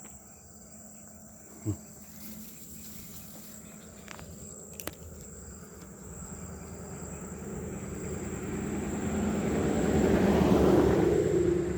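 Insects chirring steadily in one high, unbroken tone. A short thump comes about two seconds in, and from halfway through a rushing noise swells, loudest near the end, then begins to fade.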